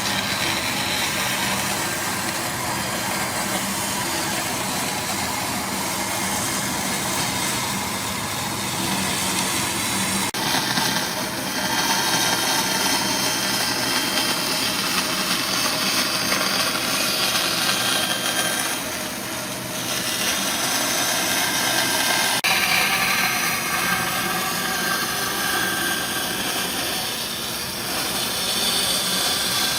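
A motor-driven machine or power tool running steadily with a loud, dense hiss and a faint low hum. The sound changes abruptly twice, about a third and about three-quarters of the way through.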